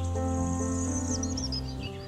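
Calm background music of slow, sustained chords, with bird-like chirps and twitters mixed in above them.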